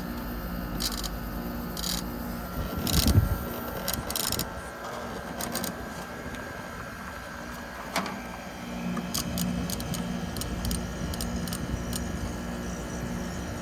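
Vintage Carrier International window air conditioner running with a steady hum as its thermostat is turned down to shut it off. There is a low thump about three seconds in and a sharp click about eight seconds in.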